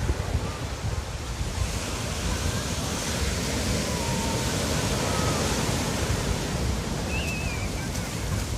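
Ocean surf washing onto the beach, swelling to a broad wash about two seconds in, with wind buffeting the microphone.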